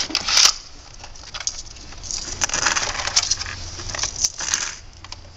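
Coins clinking and jingling as they are emptied from a coin changer's coin tubes: a short clatter at the start, then a longer run of clinking from about two seconds in until near the end.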